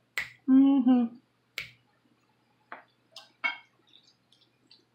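Two sharp finger snaps about a second and a half apart, with a short closed-mouth hum between them from someone chewing a mouthful of food. Near the end, faint light clicks of a fork in a glass bowl.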